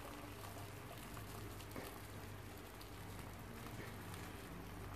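Hot seasoned water pouring from a pot onto a silicone spatula and over uncooked rice in a pan: a faint, steady pattering trickle.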